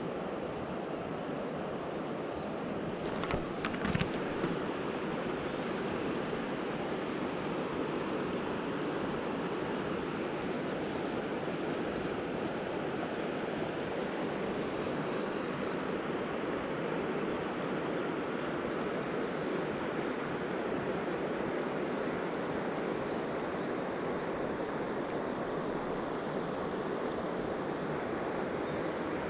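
Steady rush of flowing river water, with a few sharp knocks about three to four seconds in.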